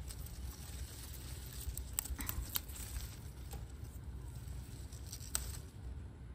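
Chili pepper plant leaves and stems rustling as ripe peppers are picked off by hand, with a few sharp snaps, a cluster about two seconds in and one more near the end.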